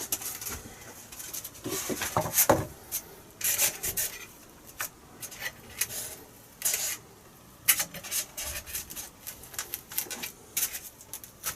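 Carbon fibre spar rubbing and scraping against foam as it is worked into a slot cut in a foam wing, in irregular strokes.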